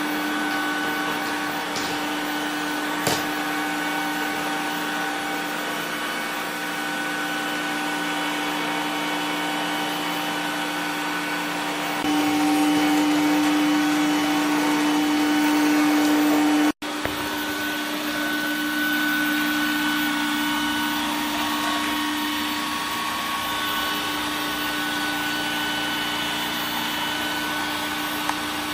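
Electrolux Pure i9 robot vacuum running: a steady motor hum with a fan whine. It gets louder for a few seconds about halfway through, then breaks off for an instant.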